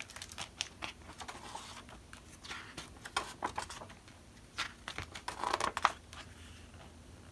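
Pages of a hardcover picture book being turned by hand: three spells of paper rustling and flapping, about two seconds apart.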